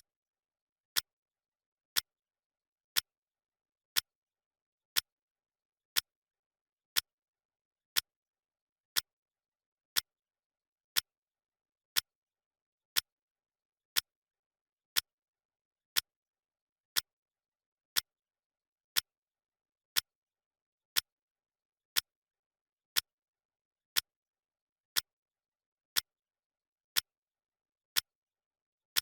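Clock ticking sound effect: one sharp tick every second, evenly spaced, with silence between the ticks.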